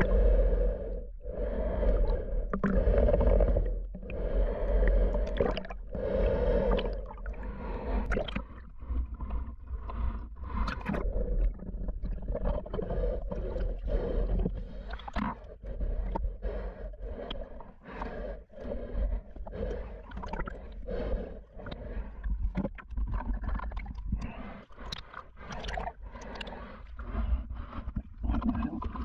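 Muffled underwater water noise around a submerged camera: swishing and gurgling over a low rumble, swelling in slow pulses at first, then broken by many sharp clicks and knocks.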